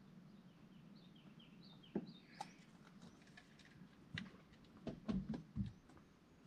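A few short, quick falling chirps, bird-like, in the first couple of seconds, followed by a series of sharp knocks and clicks, loudest about two seconds in and again around five seconds in, over a faint low hum.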